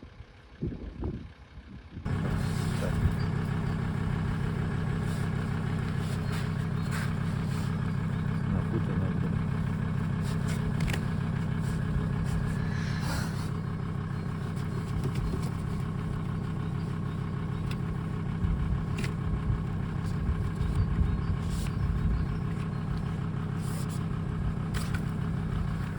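Chainsaw engine running at a high, steady speed, cutting in abruptly about two seconds in, with scattered light clicks over it.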